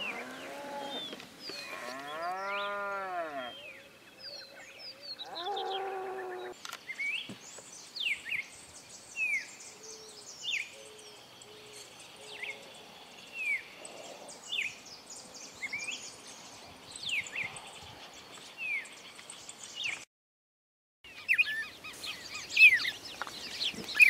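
A cow mooing, two long calls that rise and fall in pitch, followed by a small bird repeating a short falling chirp roughly once every second and a bit.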